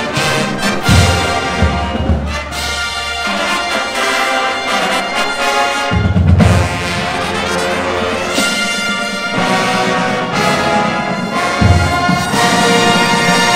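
Marching band playing a loud brass arrangement, full chords from trumpets and trombones over drums. The bass drums come in heavily in a few stretches.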